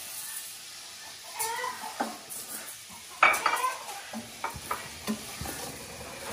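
Rice sizzling in hot oil and seasonings in a stainless steel pot while a wooden spoon stirs it, knocking and scraping against the pot, with a louder sizzling burst about three seconds in.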